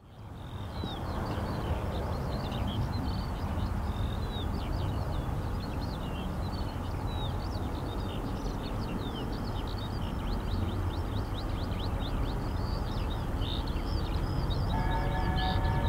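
Songbirds chirping over a low rumble that slowly grows louder as a train approaches. Near the end a distant locomotive whistle sounds, several notes at once.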